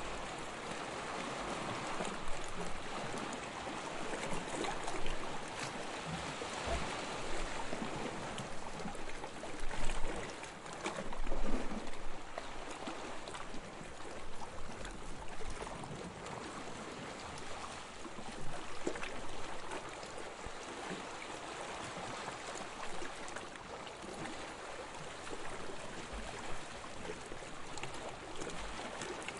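Small sea waves lapping and splashing, a steady watery wash with a few louder splashes around ten and eleven seconds in.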